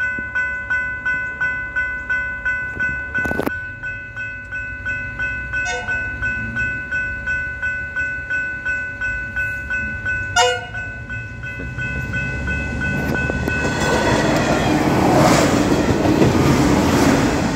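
Level crossing bells ringing steadily at about two strikes a second while a train approaches and passes. The train's rushing rail noise swells over the last few seconds until it is louder than the bells.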